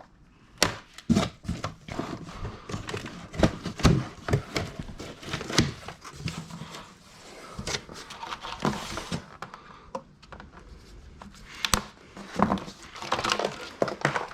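A bike being lifted out of its cardboard shipping box: irregular knocks and thuds of cardboard and packaging, with crinkling rustle of wrapping, loudest about 8 to 9 seconds in.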